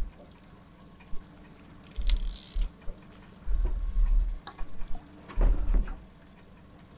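Sea water splashing at the side of a small boat as a fish hooked to a weighted descender device is lowered into the water, with a brief splash about two seconds in. Several dull low thumps come in between.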